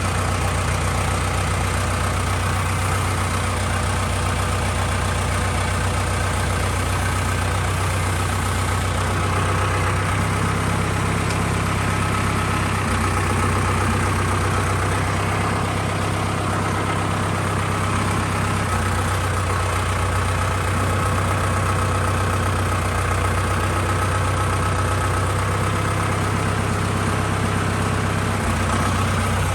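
An engine idling steadily, its low hum shifting slightly a few times.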